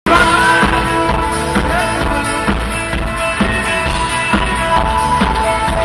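A live rock band playing over a festival PA, heard from within the crowd: guitars and a drum kit over a steady beat.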